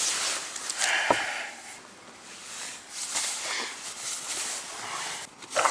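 Puffy sleeping bags and pillows rustling as they are shifted and handled right at the microphone, an uneven crinkly rustle with a few soft knocks.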